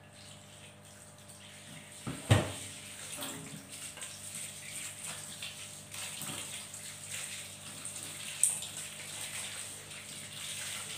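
Kitchen tap running into a stainless steel sink as buni fruit are rinsed under it by hand. A loud knock about two seconds in as the bowl goes down in the sink, and a short sharp sound later on.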